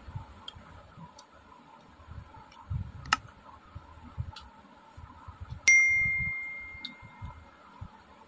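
Eating by hand from stainless steel dishes: soft chewing and fingers working the rice, small clicks, and one sudden metallic ding about five and a half seconds in, a steel plate or bowl struck and ringing out for about two seconds.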